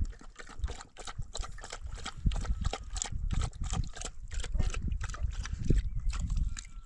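A dog eating from a plastic tub: a quick run of short clicking mouth sounds, several a second.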